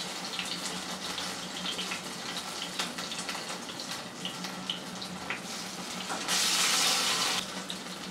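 Hot oil in a kadai crackling softly with small pops, then a loud sizzle lasting about a second, some six seconds in, as a batter-dipped chana dal cake (dhoka) goes into the oil to fry.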